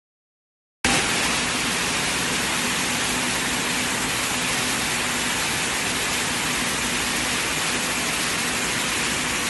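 Weaving shed full of running Picanol OmniPlus 800 air-jet looms: a loud, steady, dense noise of air jets and beating, with a faint steady hum underneath. It cuts in abruptly about a second in.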